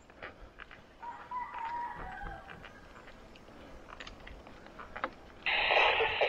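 A rooster crowing faintly, one drawn-out call. Near the end a much louder rush of noise cuts in suddenly.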